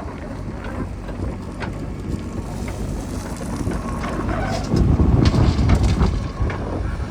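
Heavy diesel machinery running steadily, with a louder low surge about five seconds in and a few scattered clanks.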